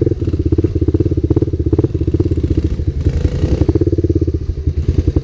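Honda ATC three-wheeler's single-cylinder engine putting along at low speed, a steady, evenly pulsing note, with light clattering over rough ground.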